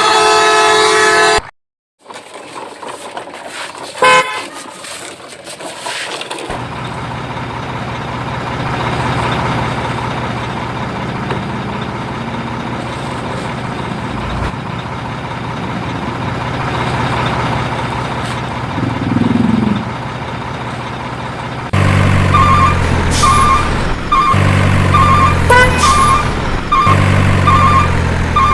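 Vehicle sounds. A loud truck-style horn blares for about a second and a half. After a short break comes a steady engine-like hum, and about 22 seconds in a regular beeping starts, like a reversing alarm, over pulsing low tones.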